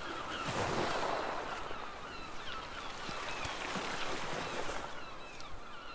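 Steady rushing of water or waves that swells and eases, with many short bird chirps over it.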